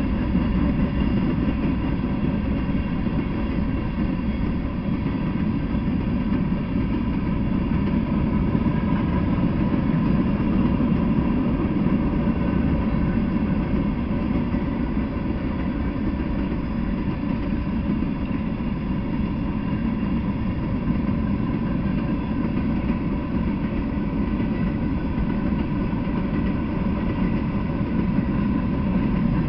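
Freight train of covered hopper cars rolling past, a steady, even rumble of wheels on the rails with no breaks.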